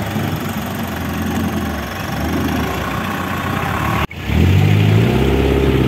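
Off-road 4x4 engines running. After a sharp break about four seconds in, a louder engine revs up slightly and holds there.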